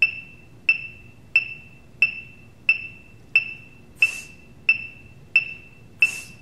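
Metronome ticking steadily at about 90 beats a minute, each tick a short high-pitched beep-click. Two brief hissing sounds about four and six seconds in.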